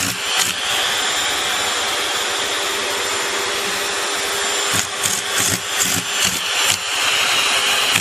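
Vacuum cleaner running with a steady hiss and hum. From about five seconds in, a quick run of irregular knocks and scrapes sounds over it, then the steady running continues near the end.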